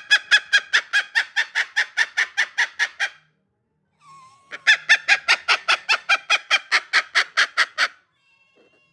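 Pet cockatiel giving rapid, evenly repeated sharp calls, about six or seven a second, in two bouts with a pause of about a second and a half between them. The owner takes this calling for an angry bird.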